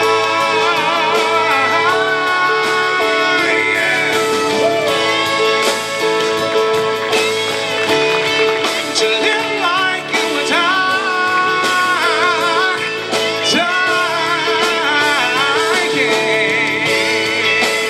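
Closing instrumental of a country song: guitar and a sustained chord under a melodic lead line with heavy vibrato.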